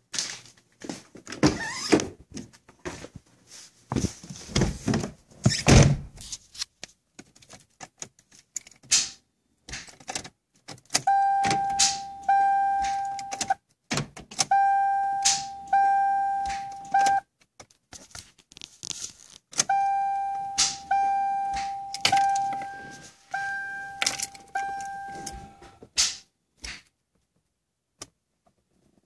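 Keys jangling and clicking, with knocks and thuds. Then a car's electronic warning chime sounds as a run of steady tones about a second long each, in two runs of five or so, with clicks between them.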